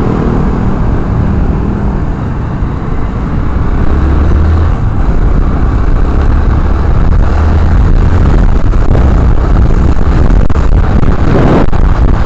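Road and wind noise of a motorcycle ride in traffic, picked up by a helmet-mounted camera: a loud, steady low rumble that grows louder about four seconds in.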